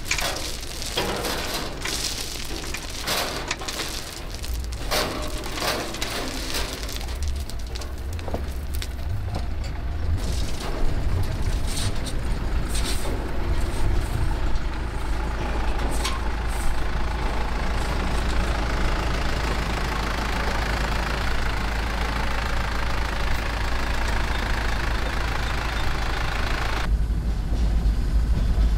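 A truck converted to run on rails runs steadily, pulling a hopper car that spills crushed-stone ballast beside the track, with stones clattering in many sharp clicks through the first several seconds. Near the end the engine sound turns deeper and duller, heard from inside the cab.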